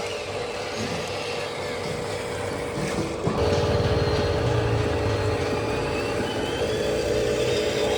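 Radio-controlled model truck or construction machine running: a steady motor whine that grows louder, with a low buzz, a little past three seconds in.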